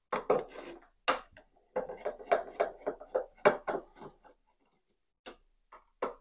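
Cross-point screwdriver turning screws out of the metal base of a CB antenna's plastic coil former: an irregular run of sharp metal clicks and short scrapes, with knocks as the part is handled.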